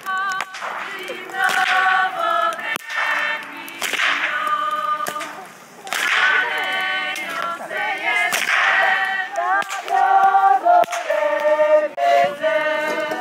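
A group of voices singing a folk song unaccompanied, with sharp cracks of a long whip several times across it.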